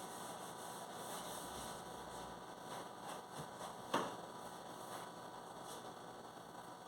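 Steady faint hiss and hum with light handling noises, and a single sharp knock about four seconds in.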